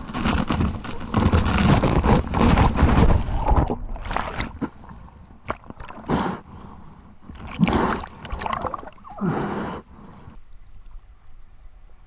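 Ocean water rushing and sloshing over a camera held at the waterline as a wave breaks, loud for the first four seconds. Then comes churning whitewater in separate splashes and gurgles, with another loud rush of water near the end that dies away.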